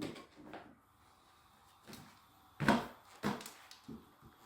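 A few knocks and scrapes of a flathead screwdriver prying at an old ceiling light fixture and its mounting, with one sharp knock a little past halfway and a smaller one just after.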